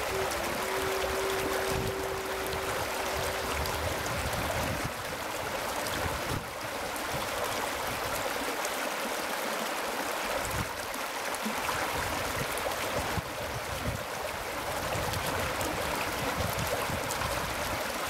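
Spring water welling out of the ground and running over rocks in a shallow spring branch, a steady flowing babble.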